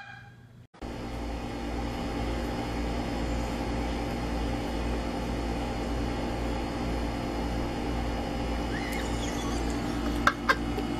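A steady machine-like hum with several fixed tones in it, starting about a second in, with a couple of light clicks near the end.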